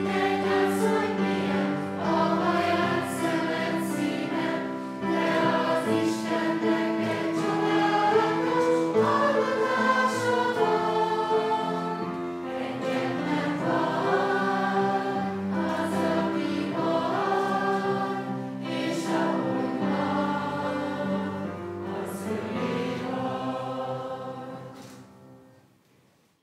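A group of children and adults singing a song together into microphones. The singing fades out and ends about two seconds before the end.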